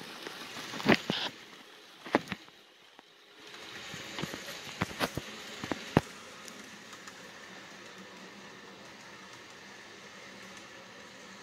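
Model train rolling along the layout track: sharp clicks of its wheels over rail joints and turnouts, scattered through the first six seconds. After that only a steady faint running noise is left as the train moves off.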